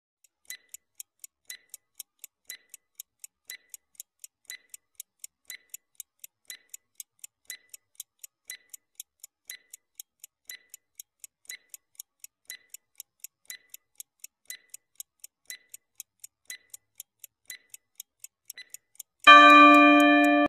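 Countdown-timer clock ticking sound effect: rapid, evenly spaced ticks, several a second, with a stronger tick about once a second. About a second before the end, a loud ringing bell-like tone sounds as the answer time runs out.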